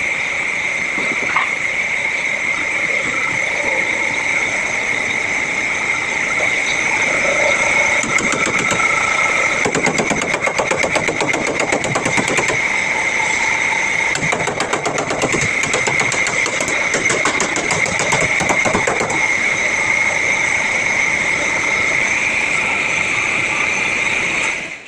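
Workshop machinery running with a steady high whine. A fast rattle of rapid impacts comes in about eight seconds in and dies away about ten seconds later. The sound cuts off abruptly at the end.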